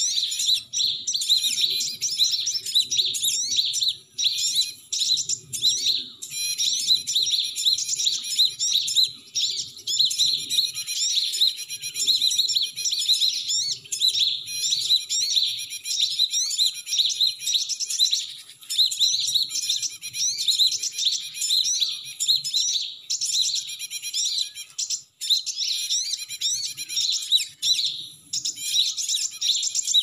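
Cinereous tit (gelatik batu) calls, played as a trapping lure: dense, rapid high chirps and trills that run almost without a break, with only a few short pauses.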